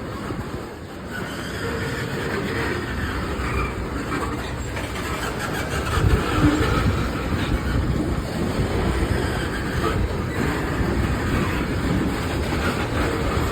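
Freight train cars rolling past, a steady rumble of steel wheels on the rails that grows a little louder about halfway through.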